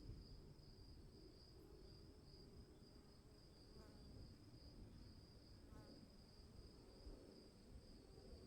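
Faint crickets chirring steadily over a low, soft rumble of distant storm ambience, with two short chirps about four and six seconds in.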